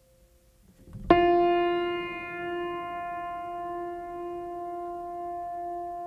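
Background music: a single keyboard note struck about a second in, ringing on and slowly fading.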